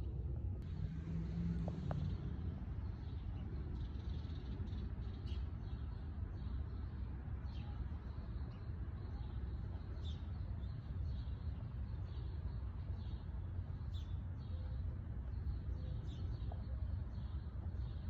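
Steady low rumble of distant city traffic, with small birds chirping in short high calls every second or two.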